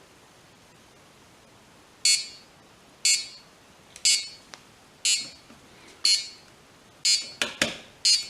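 Homemade Arduino airsoft time bomb's buzzer beeping sharply once a second as its timer counts down, seven short high beeps starting about two seconds in. Two sharp clicks fall between the last two beeps.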